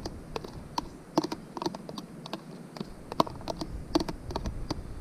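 Metal spoon tapping and scraping against a plastic food container in quick, irregular clicks as chopped onion and bell pepper are scraped out into a pot.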